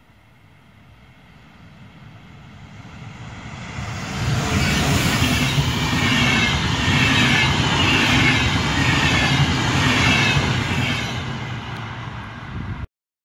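Electric intercity train, an Sr2 locomotive hauling double-deck coaches, approaching and passing through without stopping. A rising rush of wheels on rail grows into a loud rumble with a repeated clatter for several seconds, then fades and cuts off suddenly near the end.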